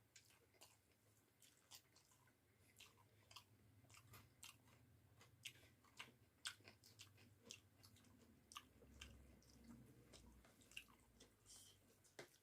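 Faint close-up chewing of a mouthful of rice with bamboo-shoot and potato curry: irregular wet clicks and smacks of the mouth, several a second.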